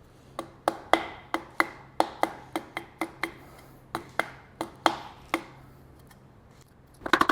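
Piston being tapped down through a ring compressor into the cylinder bore: about fifteen light, ringing taps over five seconds, irregularly spaced. The piston goes in smoothly, a sign that the rings are the right ones.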